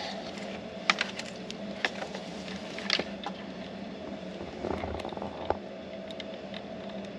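Wiring being handled and connected: scattered small sharp clicks and light rustles, with a steady low hum underneath.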